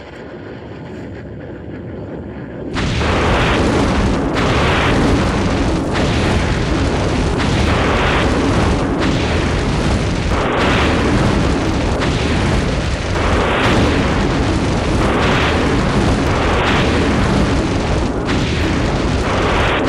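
Atlas ICBM exploding on the pad: a low rumble builds, then about three seconds in a sudden blast breaks into a loud, sustained rumbling of the fire, swelling about every second and a half.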